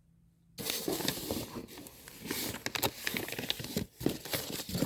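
Paper and packaging rustling and crinkling as craft supplies are handled, starting about half a second in, with many small crackles.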